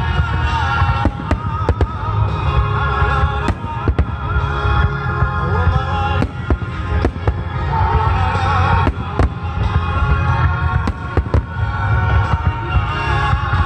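Fireworks shells bursting in quick, irregular succession with crackling, over loud music with a heavy bass line played for a fireworks show set to music.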